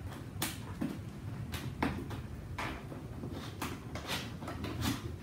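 Hands opening a small cardboard retail box, prying up its top flap: a string of short, irregular cardboard scrapes and clicks.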